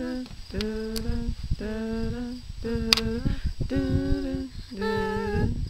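A person humming a suspenseful tune as tense background music, in a series of held notes. A few sharp clicks of small neodymium magnet balls snapping together cut through, the loudest about three seconds in.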